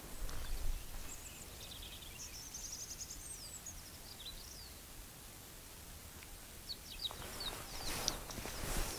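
Faint songbird calls over quiet outdoor background noise. Runs of quick high chirps and a few rising-and-falling notes come about two seconds in and again near the end.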